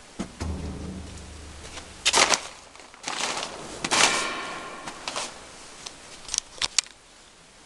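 3L722 surface grinder being handled: a clunk and a brief electrical hum, then bursts of hissing noise and a few sharp clicks near the end.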